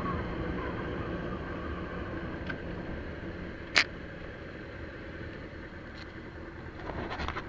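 Motorcycle engine idling steadily, with a single sharp click about four seconds in and a few small clicks near the end.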